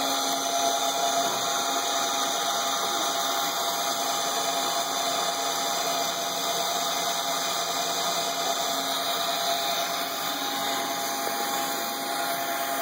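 Small electric motor in a Lego winch running steadily, a constant whine as it turns the gears and wheels that haul the funicular car along its string cable.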